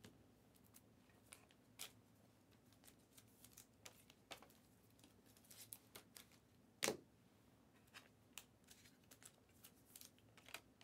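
Faint, scattered clicks and rustles of trading cards and their packaging being handled, with one sharper tap about seven seconds in, over a faint steady hum.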